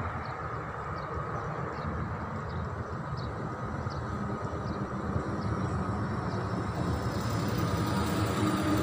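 Steady low rumble of a passing motor vehicle, growing louder over the second half.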